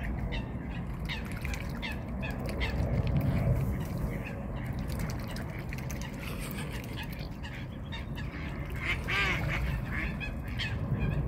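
Mute swans and cygnets feeding at the water's edge: quick, irregular dabbling and splashing clicks of bills at the surface, with one short waterfowl call about nine seconds in.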